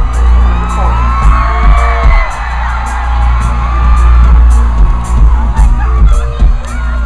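Live pop concert over a loud PA, heard from the crowd: a heavy bass and a steady beat, with many fans screaming and whooping over it.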